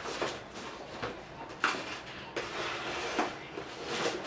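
Cardboard packaging being handled: rustling and scraping of a cardboard box and boxed toy figures, with a few light knocks.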